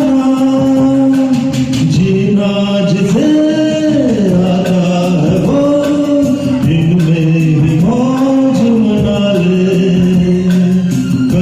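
Music from a Hindi film song performance, probably the backing track's interlude: a melody of held notes that glide from one pitch to the next over steady accompaniment, with no words sung.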